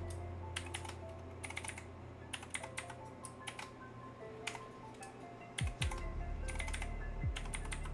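Typing on a computer keyboard: several short bursts of quick keystrokes as a password is entered and then entered again to confirm it.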